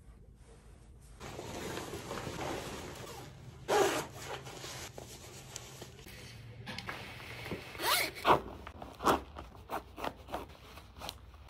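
Fabric rustling and zipping as a camouflage uniform top is put on and fastened, with one louder zip about four seconds in. Then combat boot laces are pulled through the eyelets in a string of quick, sharp swishes.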